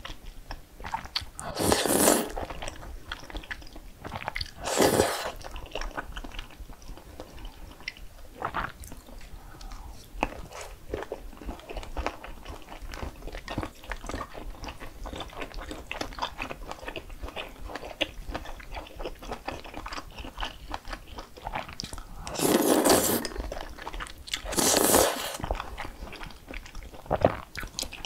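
Close-miked eating of crispy food: four loud crunching bites, two near the start and two near the end, with steady quieter chewing between them.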